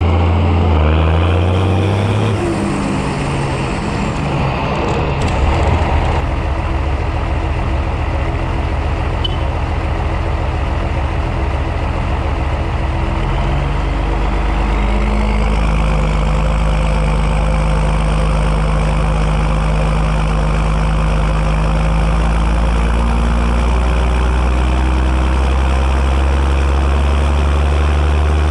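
John Deere 6910 tractor's six-cylinder turbo diesel engine running. Its pitch falls about two seconds in, then it settles into a steady idle.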